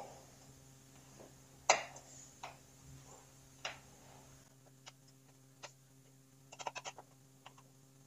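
Scattered light metallic clicks and ticks of a hex key working the bolts of an exercise bike's back-support bracket, the loudest about two seconds in and a quick run of them near the end.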